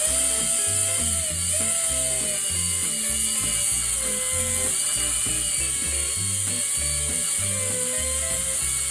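Background music with a bass line moving in short steady notes under a gliding melody.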